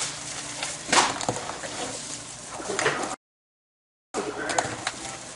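Hands squeezing and kneading raw ground meat mixed with seasonings in a bowl: irregular wet squishes and slaps, the loudest about a second in. The sound cuts out completely for about a second near the middle.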